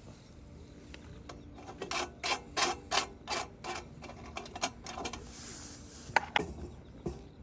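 A run of ratchet-like mechanical clicks, about three a second, then a few sharper single clicks near the end.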